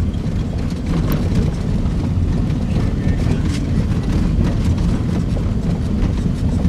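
Car driving along a rough country road: steady low rumble of engine and tyres, with faint scattered knocks and rattles.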